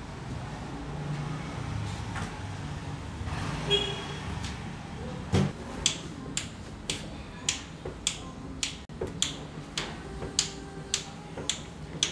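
Low steady rumble. A little over five seconds in, a single knock, then a steady ticking at about two ticks a second.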